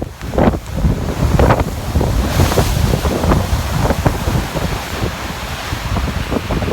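Large storm waves surging and breaking, with strong wind buffeting the microphone. A wave breaks into a rushing hiss about two seconds in.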